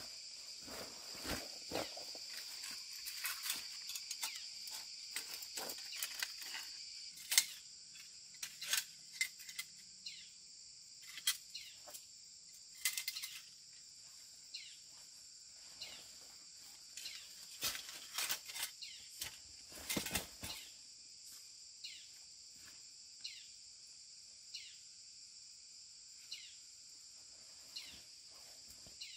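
Forest insects droning steadily at a high pitch, over rustling and sharp handling clatter as a cloth backpack and a rusty iron leg-hold trap are picked up and moved among leaves. From about halfway, a short falling chirp repeats every second or so.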